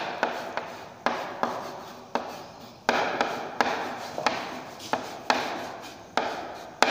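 Chalk knocking and scraping on a chalkboard as a word is written out in capital letters: a sharp tap at each stroke, about three a second, each fading quickly.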